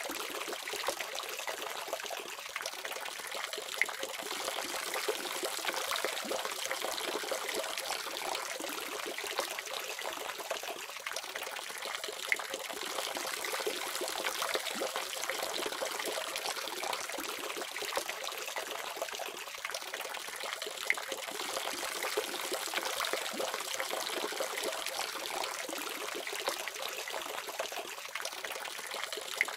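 Tap water running steadily from a faucet: a continuous splashing hiss with little low end, with a few sharper splashes standing out now and then.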